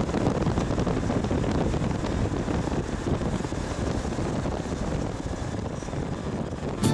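Steady road and wind noise of a moving bus, heard from inside the coach, with wind rushing over the microphone.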